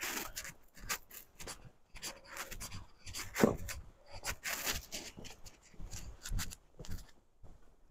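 Footsteps scuffing along a dirt path scattered with grit and dead leaves, at a walking pace of about two steps a second, with one heavier step about three and a half seconds in.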